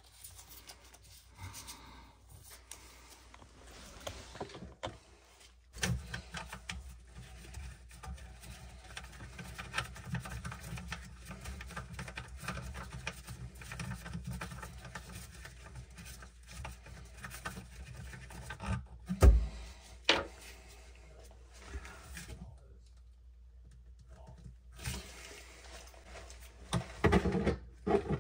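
Handling noises from a bathroom sink pop-up drain being worked on by gloved hands: rubbing and scraping on the drain's plastic and metal parts with scattered small clicks. Two sharper knocks come about two-thirds of the way through, and a cluster of knocks near the end.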